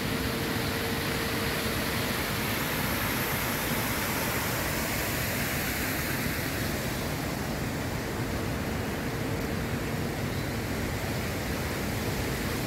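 Steady rushing outdoor noise, even and unbroken, with a faint steady hum that drops out in the middle.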